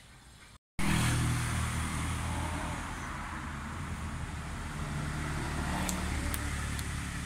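Steady low engine hum with hiss, starting abruptly about half a second in, with a few faint ticks near the end.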